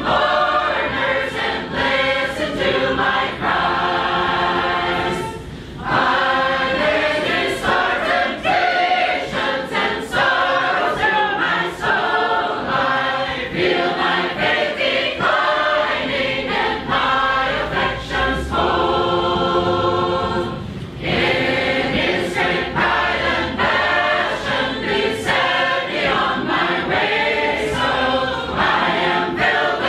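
Large mixed group singing Sacred Harp shape-note music a cappella in four parts, loud and full, with two brief breaks between phrases.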